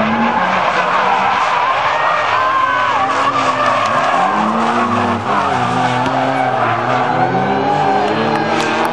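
Two drift cars sliding through a corner in tandem: engines revving up and down with the throttle while the tyres squeal.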